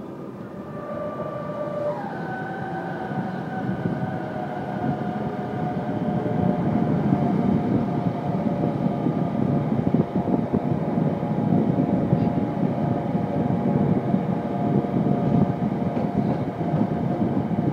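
Container freight wagons rolling past: a dense rumble and clatter of wheels on rail that grows louder over the first few seconds. A steady thin squeal from the wheels runs over the top.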